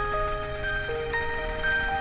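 Instrumental background music: a melody of held, stepping notes with a bright chime-like tone.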